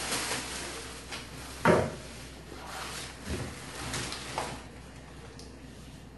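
Wilted banana leaves rustling as they are handled, with a loud knock about one and a half seconds in and a few softer knocks after.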